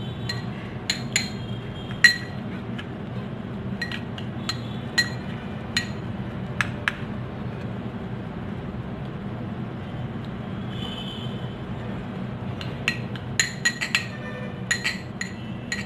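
Metal spoon clinking against a glass bowl while stirring a thick paste. The sharp, ringing taps come scattered at first, stop for a few seconds in the middle, then come in a quicker run near the end.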